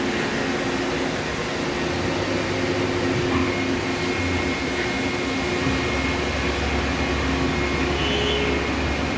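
Steady running noise of machine-shop machinery: a continuous hum and whine with a few held tones, and a deeper low hum coming in about six seconds in.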